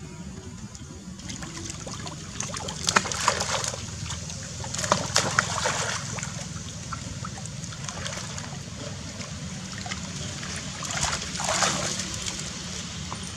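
Monkeys splashing in shallow muddy water, in three spells of splashing: about three seconds in, around five to six seconds, and near the end. A steady low water noise runs underneath.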